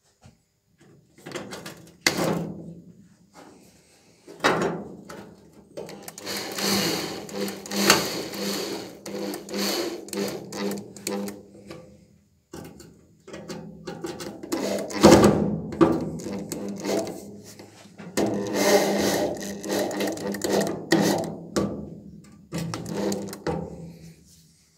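Cordless drill/driver running in several bursts of a few seconds, with short pauses between, driving self-tapping screws into the steel wheel-arch panel to clamp the repair patch in place.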